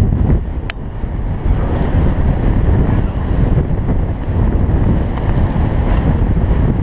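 Wind buffeting a helmet-mounted camera's microphone as a downhill mountain bike runs fast down a dirt singletrack, with steady tyre rumble and rattle over the ground. A sharp click comes just under a second in.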